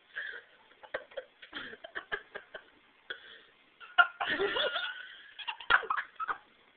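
Women giggling and laughing in short bursts, with a longer, louder stretch of laughter about four seconds in.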